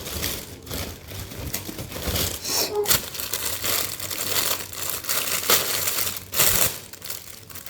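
Packaging crinkling and rustling in irregular bursts as an item is unwrapped.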